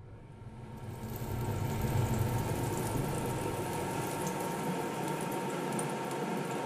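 Butter sizzling as it melts in a hot Vermicular cast-iron frying pan, with fine crackles. The sizzle swells over the first second or so and then holds steady.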